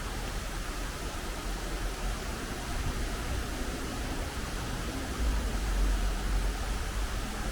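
Steady rain falling, an even hiss. A low rumble swells for a couple of seconds about five seconds in.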